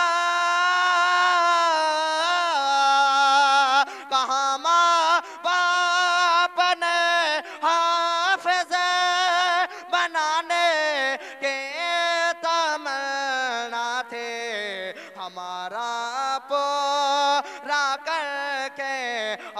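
A single male voice singing a naat into a microphone, with no instruments. It holds one long note for about two seconds, then runs through quick, wavering ornamented turns broken by short breaths, with no clear words.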